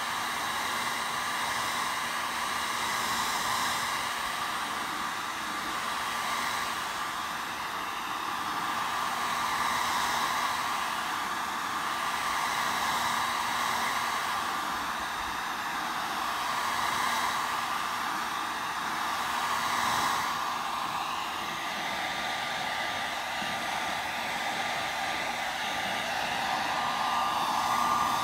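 Handheld heat gun running on high: a steady rush of blown air over a motor hum, swelling and easing a little as the nozzle is moved along the plastic trim.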